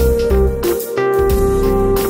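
Electronic synthesizer instrumental music: held keyboard tones over a deep, pulsing bass with regular percussive hits.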